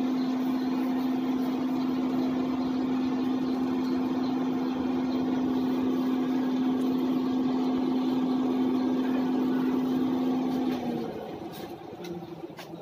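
Electric blower feeding air to a charcoal forge, running with a steady hum over rushing air, then shutting off about 11 seconds in.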